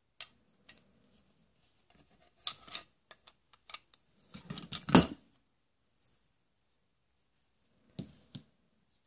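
Plastic toy tools being handled: scattered clicks and knocks, with the loudest cluster about five seconds in and a pair of knocks near the end.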